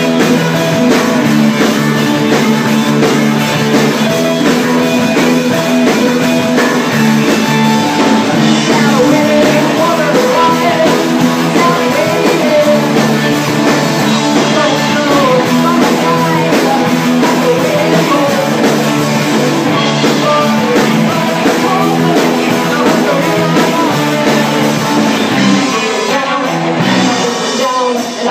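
Live band playing rock music, led by guitars with a bending melodic line over the middle part.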